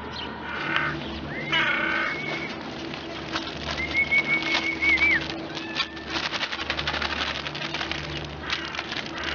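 Birds calling at a feeding spot, over a low pulsing sound and many scattered clicks. Two high calls stand out: a gliding one about a second and a half in, and a held, slightly wavering one at about four seconds.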